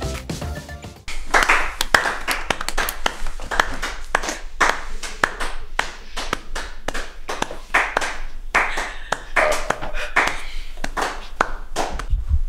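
Audience applauding, a dense patter of many hands clapping, beginning about a second in after the tail of background music.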